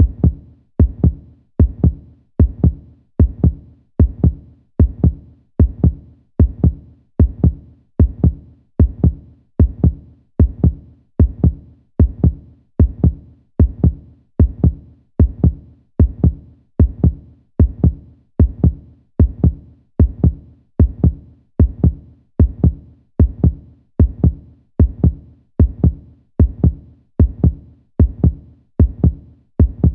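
Heartbeat sound effect: a steady, even lub-dub rhythm of paired low thumps, a loud beat each followed closely by a softer one.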